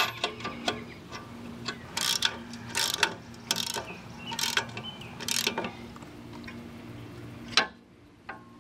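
Hand socket ratchet clicking as bolts are run in on a tractor's front grill guard. Rapid clicks at the start give way to five short ratcheting bursts spaced a little under a second apart, then one sharp click near the end.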